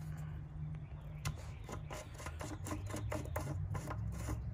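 A quick, irregular run of small clicks and scrapes, several a second, starting about a second in: a new spin-on oil filter being turned onto its mount by hand. A steady low hum runs underneath.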